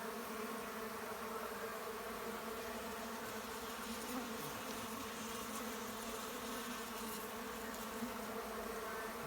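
Many uruçu stingless bees (Melipona) buzzing in flight, a steady, even hum of wingbeats during a mass flight after rain.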